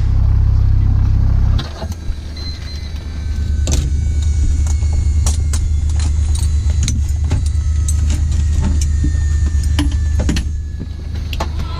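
Metallic clicks and jingles of aircraft seat-harness buckles and straps being handled over a steady low rumble, which is louder for the first second and a half.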